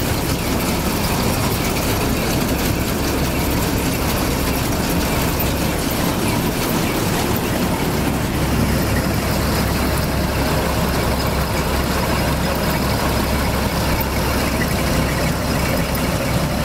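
Claas Matador Gigant combine harvester running with its threshing gear engaged: the six-cylinder diesel engine and the turning threshing drum, belt pulleys and straw walkers make a steady mechanical running noise. This is a test run after the machine's reassembly before harvest.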